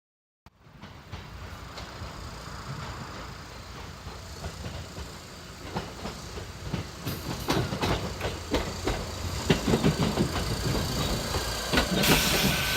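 Electric train running on rails, its wheels clicking over the rail joints, getting louder and the clicks coming faster. Near the end a hiss and a thin steady squeal join in.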